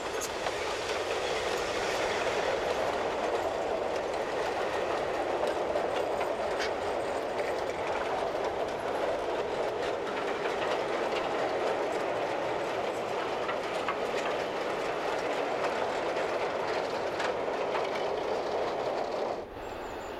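Narrow-gauge slate wagons of the Ffestiniog gravity train rolling downhill by gravity with no locomotive: a steady rumble of iron wheels on rail, flecked with light clicks and clatter. It drops away abruptly just before the end.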